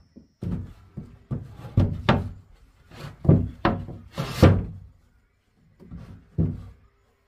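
Hammer blows on a wooden pole roof frame under corrugated roof sheets: about a dozen irregular knocks, with a short pause before the last two.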